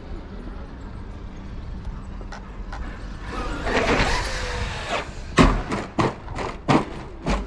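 Traxxas X-Maxx RC monster truck driving off, its motor and tyres rising over a couple of seconds, then a run of about six sharp knocks and clatters about two seconds apart at most: the truck landing badly after a jump.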